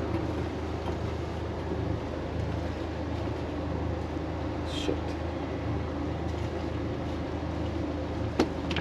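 Leopard 45 catamaran's diesel engines running steadily at idle throttle, a constant low hum under wind and water noise. A couple of sharp clicks near the end.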